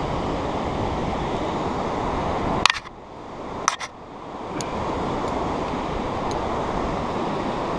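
Wind buffeting a GoPro's microphone as a steady low rush. It drops away suddenly near the middle for about two seconds, then builds back. A few sharp clicks of carabiner and rope handling come around three and four seconds in.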